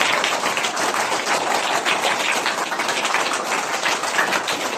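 A group of people clapping, a steady round of applause.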